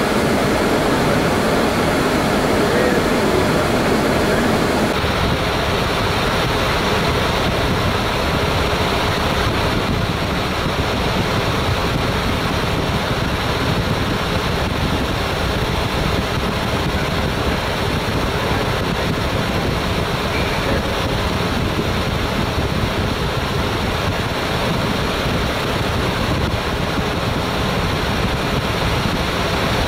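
Steady rushing noise on a Boeing 787 flight deck in flight, from air streaming past the cockpit and the air conditioning. The hiss loses some of its top end about five seconds in.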